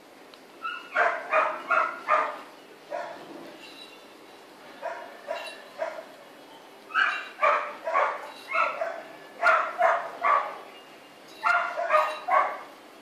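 Dog barking in bouts of several quick barks, with short pauses between the bouts.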